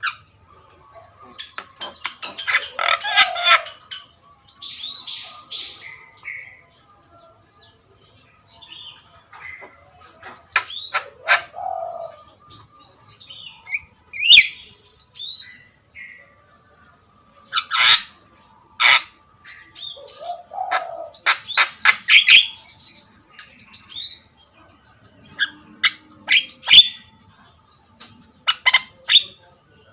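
Javan myna calling in irregular bouts, a mix of harsh squawks, whistled glides and quick chattering notes separated by short pauses.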